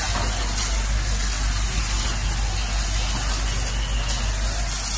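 Steady rushing noise of a firefighting hose jet spraying water, over a low, even engine rumble.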